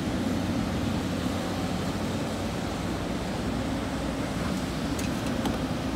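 SANY crawler excavator's diesel engine running steadily under load as the machine lifts and swings a bucket of sand.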